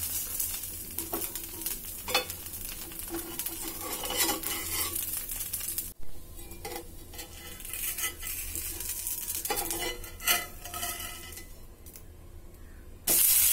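A spatula scraping and tapping against a cast-iron pan as a ghavan, a thin rice-flour crepe, is loosened and flipped, over a light sizzle. Near the end a loud, steady sizzle starts suddenly as the crepe's uncooked side lands on the hot oiled pan.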